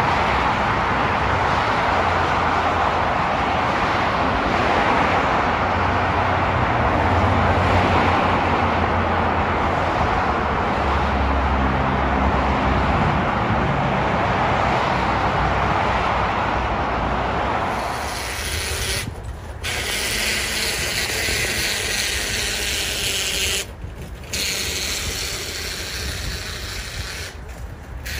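Steady road and tyre noise from a car travelling at highway speed, with a low rumble underneath. About two-thirds of the way through it gives way to a thinner hiss, broken by three brief gaps.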